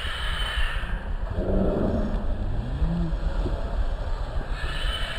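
Steady low rumble of wind buffeting the microphone. About a second and a half in, a single pitched call rises and falls for about a second and a half.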